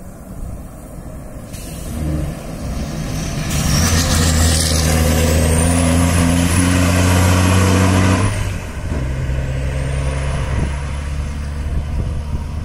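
A rally-raid truck's diesel engine passing at steady revs, growing loud about three seconds in, with a high whistle over it. It cuts back about eight seconds in with a hiss and runs on more quietly.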